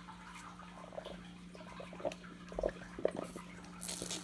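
Faint sucking and swallowing as a Slurpee is drunk through two straws, with several short gulps, over a steady low hum.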